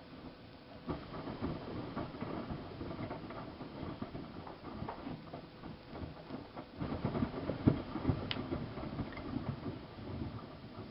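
Miele Softtronic W3657 washing machine drum turning and tumbling wet laundry, with sloshing water and soft irregular knocks. It starts about a second in and eases off near the end.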